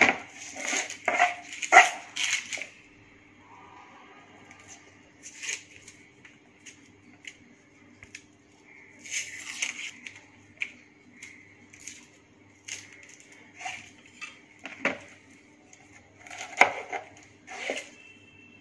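Kitchen knife cutting through an onion onto a plastic cutting board, a quick run of cuts and knocks at first. Then scattered clicks and light scraping as the knife lifts off the onion's papery outer skin, over a faint steady hum.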